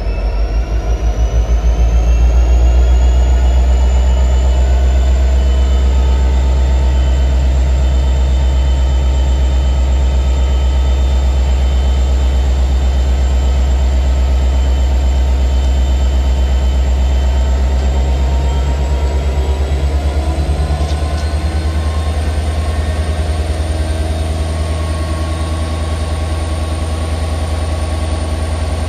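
Diesel-electric freight locomotive engine working under power: a deep, loud, steady throb with a whine that rises over the first few seconds and climbs again about twenty seconds in, as the throttle is notched up.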